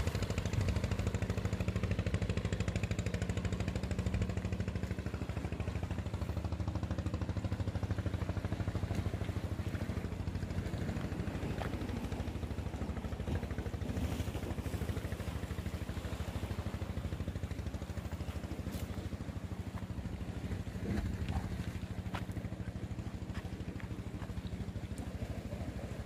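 Engine running steadily at idle: a low, even drone, with a few faint clicks.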